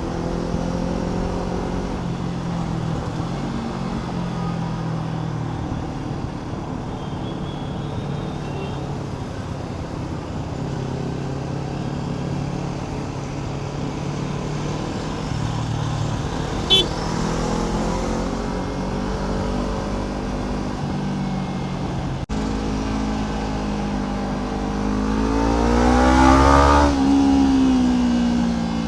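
Kawasaki Ninja 300's parallel-twin engine running steadily at low revs, then revving up in a rising pitch near the end and easing off again. A brief sharp click sounds about two-thirds of the way through.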